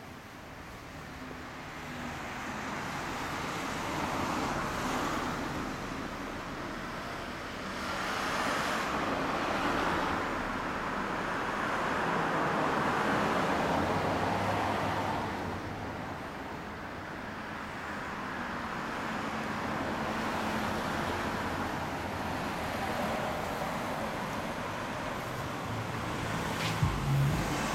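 Road traffic on a street: several cars passing one after another, each swelling and fading over a few seconds. A short knock near the end.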